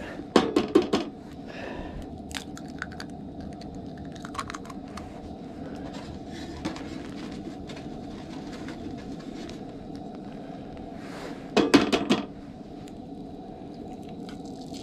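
Eggs knocked and cracked against a griddle pan, a quick run of sharp taps in the first second and another about twelve seconds in, over the steady hiss of a propane camp stove burner.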